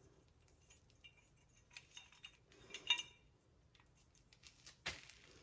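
Light, scattered clinks and taps of small metal parts, washers among them, being handled and fitted by hand, with the loudest clink about three seconds in.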